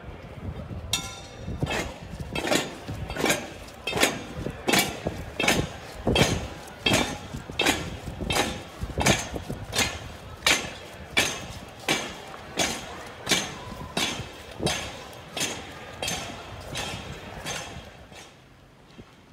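Slow, even metallic knocking from a Holy Week procession: sharp strikes about every three-quarters of a second, each with a short ring. It starts about a second in and stops near the end.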